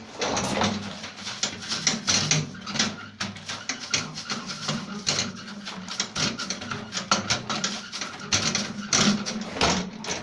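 Water from a handheld shower splashing over plastic vacuum cleaner parts being rinsed, with irregular clattering and knocking as the parts are handled.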